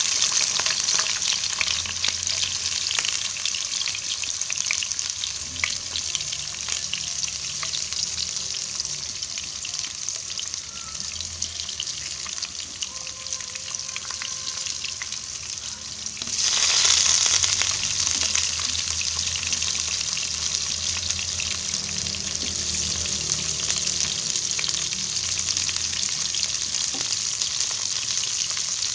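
Onions and other prepared ingredients sizzling steadily as they sauté in hot oil, with the light clicks of stirring in the pan. The sizzle grows louder a little past halfway through.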